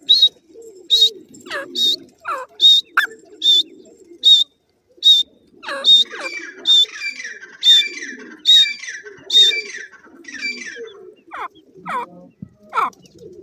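Grey francolins calling: a short high-pitched note repeated about once a second, mixed with quick whistles that sweep downward. The repeated notes stop about ten seconds in, and the last few seconds hold only the falling whistles.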